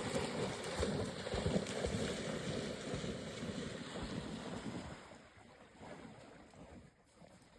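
Water splashing and sloshing, with wind rumbling on the microphone; it dies down about five seconds in.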